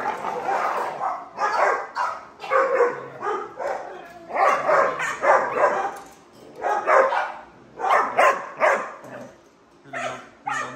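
XL bully dogs in kennel crates barking over and over, roughly one or two barks a second in uneven runs.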